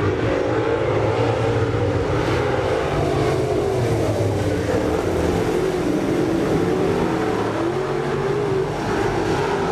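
Several dirt late model race cars' V8 engines running hard at racing speed, the engine note rising and falling as they power through the turns.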